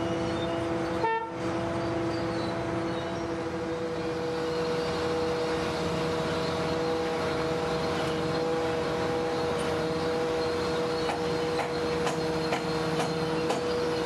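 Steady droning whine at a constant pitch from the recovery crane's power unit as it holds a tank car body suspended over its bogie. The drone breaks off briefly about a second in, and a few light metallic clicks come near the end.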